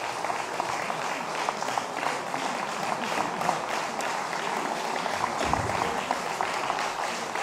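Audience applauding: the dense, even clapping of many hands, holding steady throughout.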